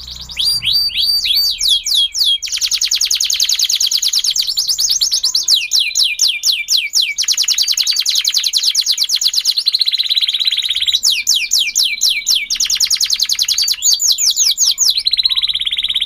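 Domestic canary singing the 'standard' canary song, the bird's own natural song rather than one copied from other birds. It sings an unbroken string of rapid trills, each a fast run of the same downward-sweeping note, switching to a new trill every second or few.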